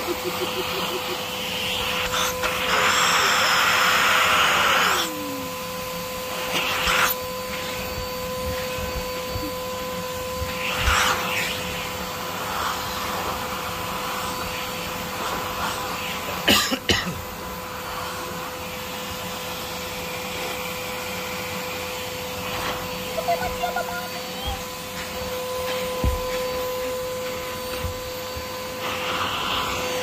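Vacuum cleaner with an upholstery nozzle running steadily, with a constant whine over the rush of air. About two seconds in, a louder rush lasts a couple of seconds. A sharp knock comes a little past halfway.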